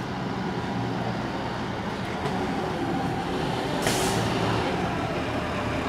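Diesel engines of fire engines approaching, growing steadily louder, with a short hiss about four seconds in.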